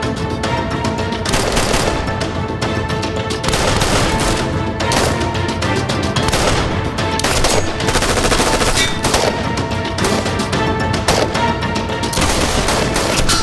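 Gunfire exchange: pistol shots among many rapid shots in quick succession.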